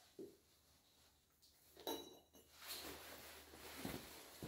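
Mostly near silence, with a faint metallic clink of a steel block being handled on a concrete floor about two seconds in, and soft shuffling with a dull knock near the end.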